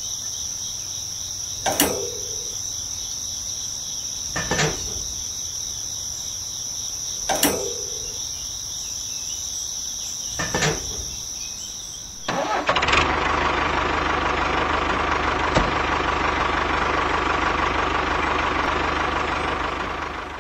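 A steady high-pitched whine with a sharp click every few seconds. About halfway through, the homemade mini tractor's small motor starts and runs steadily, louder than anything before it.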